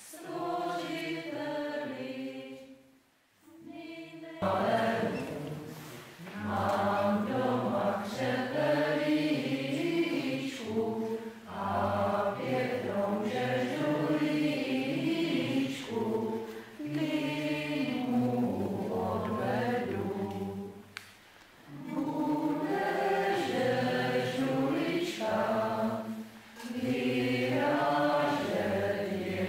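Small mixed group of men's and women's voices singing a Czech Christmas carol unaccompanied, in sung phrases with a brief break a few seconds in.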